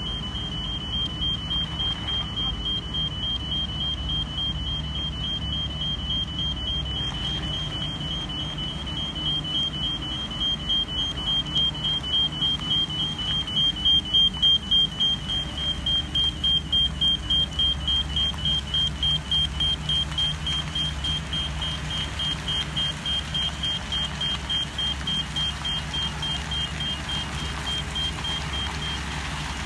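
Warning beeper on a low-profile tunnel segment carrier train, beeping at a high pitch about twice a second over the steady low running of its engine. Both grow loudest about halfway through as the vehicle passes close.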